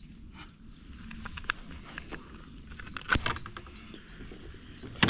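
Light metallic rattling and clicking of fishing tackle being handled in a plastic kayak while a pickerel is landed by hand. There is a sharp knock about three seconds in and another near the end.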